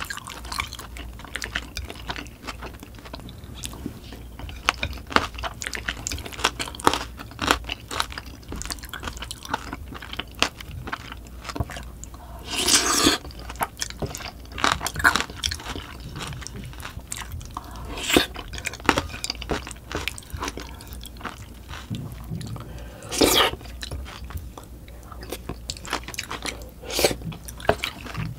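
Close-miked eating: chewing and crunching mouthfuls of curry with cabbage, with short clicks of a spoon on the plate. There are two longer, louder noisy sounds about ten seconds apart.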